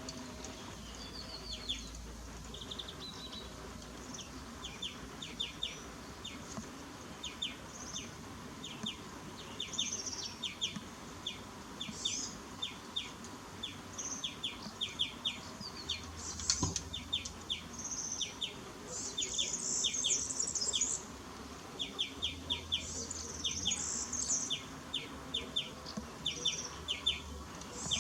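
Small birds chirping: quick runs of short, high chirps throughout, with higher twittering calls over them that grow busier in the second half.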